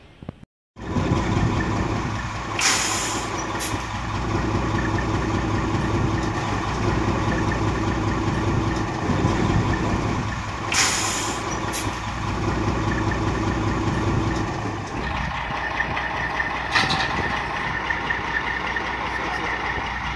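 A heavy truck's engine running steadily. Two short hisses of air come about three and eleven seconds in, and a sharp click comes near the end.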